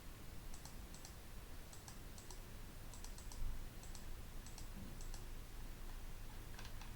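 Computer mouse clicking about a dozen times, many clicks in quick pairs, with a dull low bump about three and a half seconds in.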